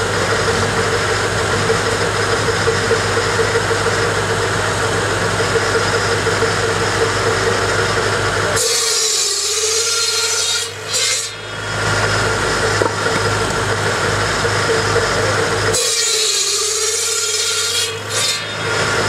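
Buzz saw driven by a Farmall Cub tractor's four-cylinder engine: the spinning blade hums steadily over the idling engine, then twice bites through a firewood log, a loud rasping cut of two to three seconds each, about nine seconds in and again near the end. The blade's hum sags slightly in pitch as each cut loads it.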